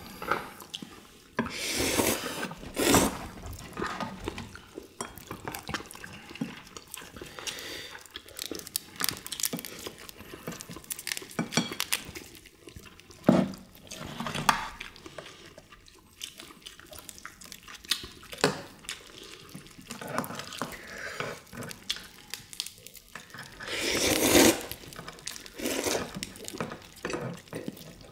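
Eating at a table of soy-sauce marinated crab and rice: spoons and chopsticks clink and scrape on ceramic bowls and plates amid wet sucking and chewing, with a few louder wet bursts now and then.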